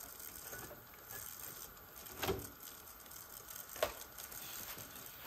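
A few light clicks and taps of small hard objects being handled over a faint hiss, the two sharpest about two and a quarter and nearly four seconds in.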